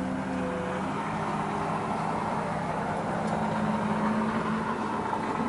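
Steady mechanical hum with a faint low droning tone, unchanging throughout.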